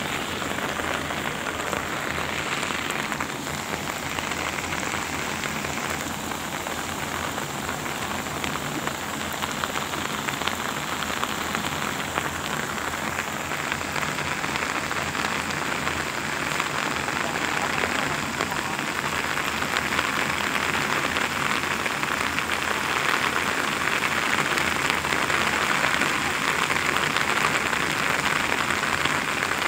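Heavy monsoon rain pouring steadily, a dense even hiss of drops on wet ground and water. It grows a little louder in the second half.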